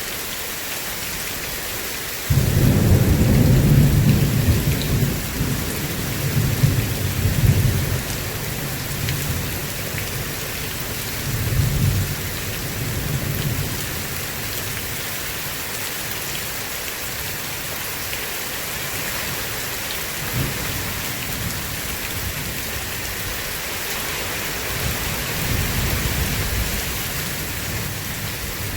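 Steady heavy rain hiss with rolls of thunder: a deep rumble breaks in suddenly about two seconds in and rolls on for several seconds, followed by weaker rumbles midway and near the end and one short crack in between.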